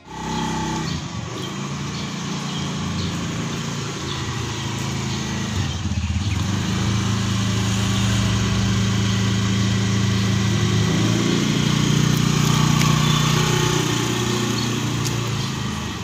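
Small motor scooter's engine running as it rides up close and then pulls away. The engine note shifts in pitch a few times, is loudest a few seconds before the end, and then fades.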